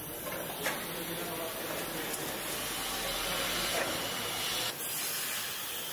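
Car-factory body-shop hall noise: a steady hiss that grows louder and cuts off suddenly near the end, with a light click about half a second in.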